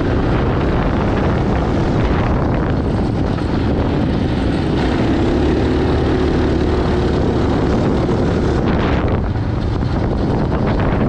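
Mini bike's small engine running under throttle through a torque converter drive while being ridden, with wind rushing over the microphone; the engine note shifts a few times as the speed changes.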